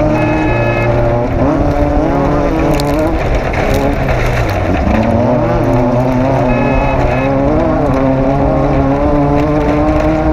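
Off-road race car engine running continuously, its pitch rising and falling over and over, with a brief drop in pitch about five seconds in.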